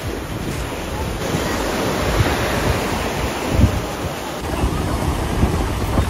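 Sea surf washing onto the shore, with wind buffeting the microphone in low, uneven gusts.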